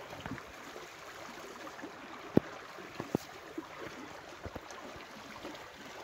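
River water running steadily, with a few sharp clicks, the loudest about two and a half seconds in.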